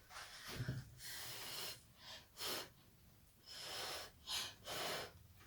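Short puffs of a person's breath close to the microphone, about six of them over a few seconds.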